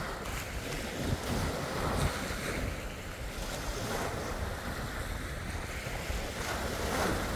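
Small sea waves breaking and washing in over a shingle beach, a steady surf noise, with wind buffeting the microphone.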